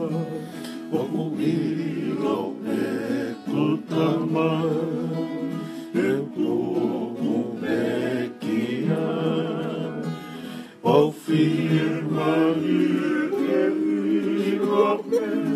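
A group of men singing together to a strummed acoustic guitar, several voices joining the lead singer.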